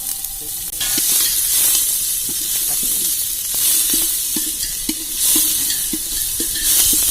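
Chopped onion sizzling in hot oil in a pan while a spoon stirs it, knocking against the pan about twice a second.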